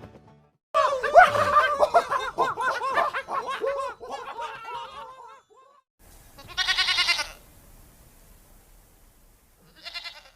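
Goat bleating: a long bleat with a quavering, wavering pitch, then a shorter call about six and a half seconds in and a brief one near the end.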